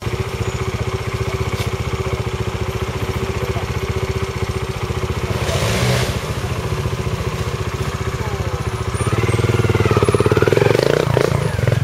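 Trials motorcycle's single-cylinder engine idling with a steady, rapid putter, with a short blip of throttle about five and a half seconds in, then revving up and back down near the end.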